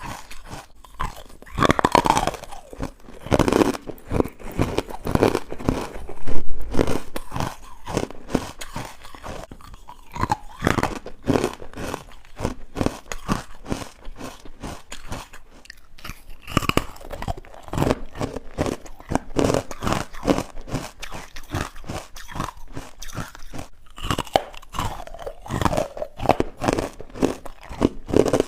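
Person biting and chewing chalky, powdery white ice bites made from carbonated water: a dense run of crisp crunches with wet mouth sounds, the loudest bite about six seconds in.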